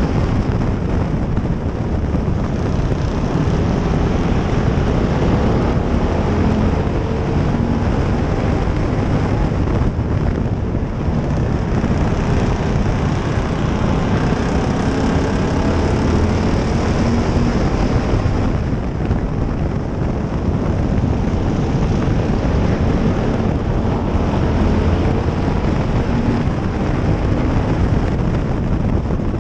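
Stock car's engine racing at speed, heard from on board the car, its pitch rising and falling as it is driven around the track.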